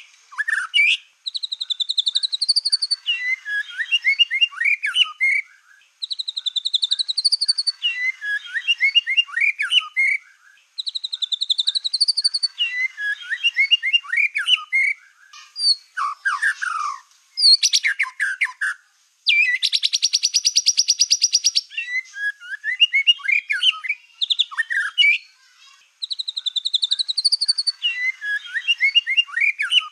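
A black-tailed white-rumped shama singing. It repeats a phrase every five seconds or so: a wavering whistle, then a quick tumbling run of notes. About two-thirds of the way through comes a long, loud, fast buzzing rattle.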